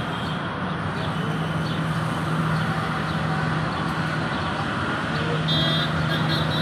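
Busy street ambience: a steady wash of traffic noise with a continuous engine hum. A few short high-pitched tones come near the end.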